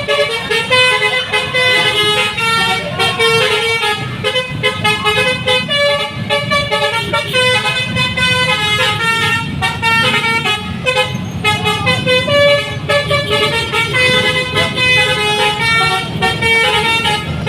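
Bus telolet horn: a multi-tone musical horn playing quick runs of notes again and again, over a steady low rumble.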